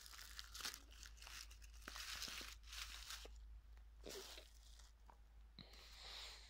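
Dry fallen leaves and grass crunching and rustling underfoot in faint, irregular crackles, as someone steps and brushes through bankside vegetation.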